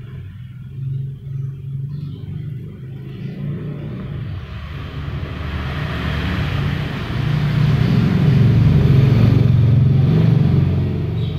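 Low rumble of a passing motor vehicle, building to its loudest about eight to ten seconds in and easing off near the end.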